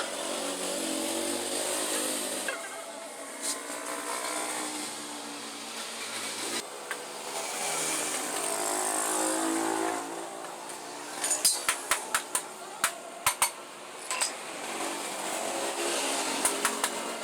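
Vespa Super 150's single-cylinder two-stroke engine running, its pitch rising and falling, with abrupt changes as if cut between takes. A quick run of sharp metallic clicks comes in about two-thirds of the way through, and a few more near the end.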